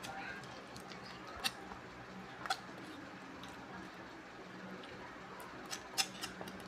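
Kitchen knife cutting raw chicken thigh on a mesh mat, the blade giving a few sharp clicks as it strikes the surface beneath: two single clicks and then a quick cluster near the end, the loudest of all. A faint low hum runs under it.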